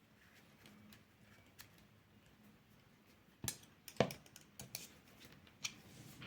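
Faint handling noise of paracord being worked through a monkey fist knot on a jig, with a scatter of sharp little clicks, the two loudest about three and a half and four seconds in.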